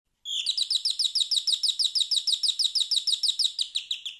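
Electronic doorbell ringing: a high, rapid trill of about ten chirps a second that starts a moment in and fades near the end.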